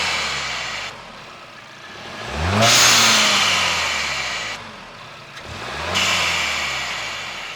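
Mk7 VW GTI's turbocharged 2.0-litre four-cylinder being blipped, its revs rising and falling about every three seconds. Each time the throttle closes, the Forge Motorsport blow-off valve vents with a loud hiss that fades over a couple of seconds.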